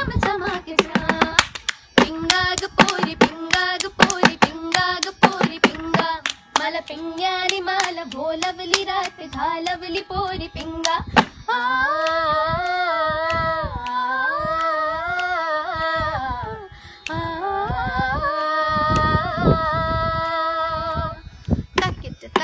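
Two girls singing together, accompanied by their own hands slapping and tapping a small table and clapping in a quick rhythm. About halfway through the percussion thins out and they hold long ornamented notes, and the strikes return just before the end.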